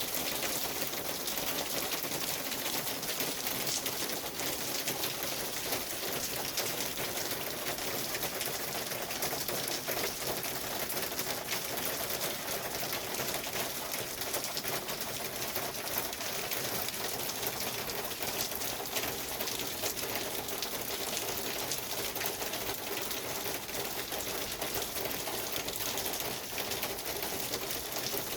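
Steady rain pattering: an even hiss full of fine, close-set ticks.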